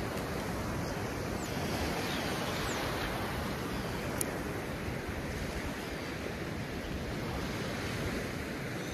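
Ocean surf washing steadily onto the beach, with some wind on the microphone.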